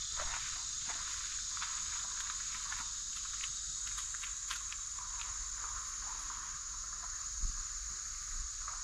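Steady high-pitched insect chorus in summer woodland, with a few faint ticks and scuffs and a soft thump about seven and a half seconds in.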